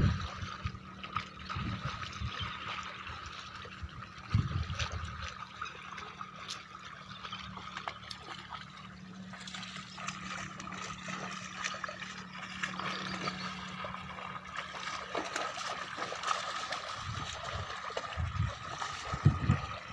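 Shallow water trickling and gurgling steadily, with a few short low thumps about a second and four seconds in and again near the end.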